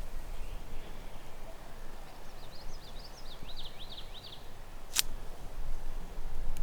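A songbird sings one short phrase of quick sliding high notes, and a single sharp click comes about five seconds in.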